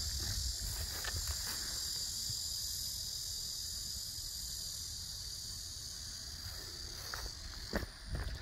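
Steady, high-pitched chorus of summer insects, with a low rumble beneath and a few footsteps near the end.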